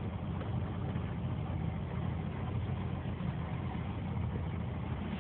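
Bass boat's outboard motor running steadily under way, a constant low drone mixed with a rush of wind and water noise.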